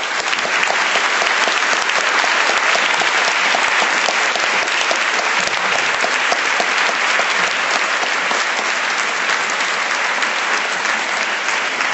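Large audience applauding, a dense, steady clapping of many hands.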